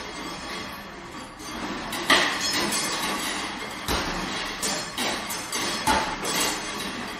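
Solo percussion: irregularly spaced struck hits, each ringing on briefly. The sharpest hit comes about two seconds in, and a cluster of further hits follows in the second half.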